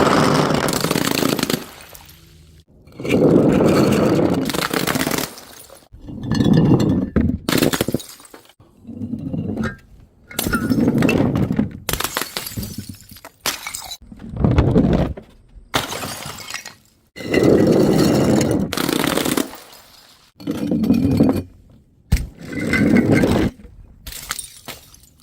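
Glass bottles smashing one after another, about ten separate crashes, each a sudden impact followed by a second or so of shattering and tinkling glass.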